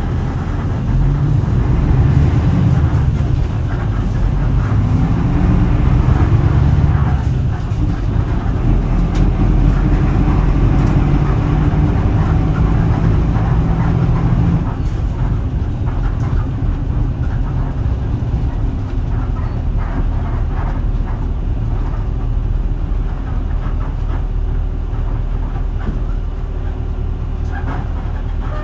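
Isuzu Cubic (KC-LV380L) bus's V8 diesel engine running under way, its pitch rising over the first several seconds as the bus pulls. About halfway through it drops back to a lower, steadier run.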